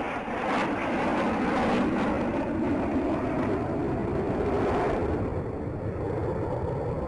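Jet noise from Black Eagles T-50B jets flying past during an aerobatic display: a loud, steady rush that dulls after about five seconds as the high end drops away.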